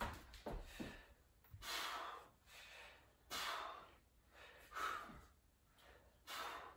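A person breathing hard through a set of one-arm dumbbell rows: four breaths out, about a second and a half apart.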